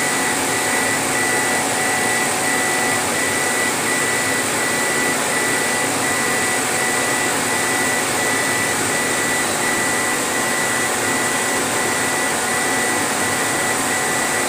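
Laser engraving machine at work: a steady blower hiss with a high tone pulsing about three times a second as the laser head sweeps back and forth.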